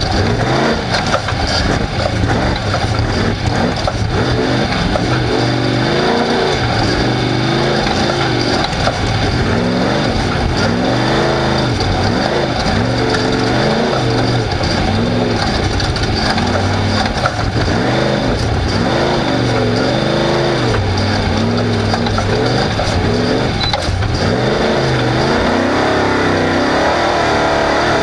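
Off-road race car engine running hard, its pitch rising and falling every second or two as the throttle is worked over rough ground, over a constant loud rush of wind and tyre noise.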